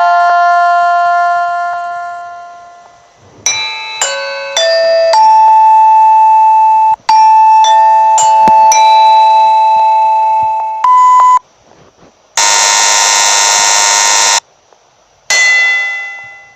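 A run of short separate sound-effect clips, mostly electronic chime and bell-like tones: held and fading notes, a few quick note sequences like a doorbell jingle, and a loud two-second burst with a noisy hiss near the end.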